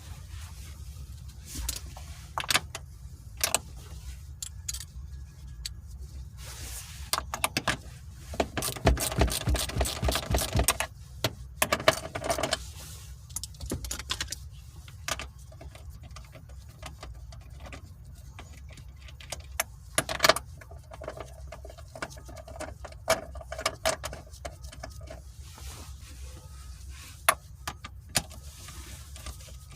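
Hand tools on the Chevy Cobalt's manual shifter mount: scattered metallic clinks and knocks, with a fast run of ratchet clicks about nine to eleven seconds in as the 13mm bolts are worked loose. A steady low rumble lies under it all.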